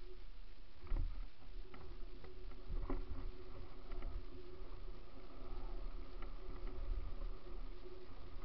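Mountain bike rolling fast down a rough gravel trail: a steady low rumble of tyres and wind on the microphone, with knocks and rattles from the bike over bumps, sharpest about one and three seconds in.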